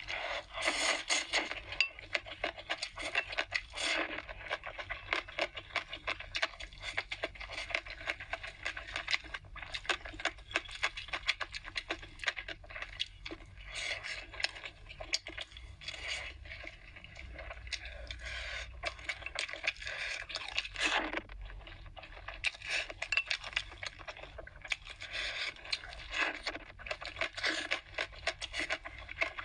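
Close-miked eating sounds: noodles slurped in, then steady wet chewing and lip smacking, in quick crackly runs with a few short pauses.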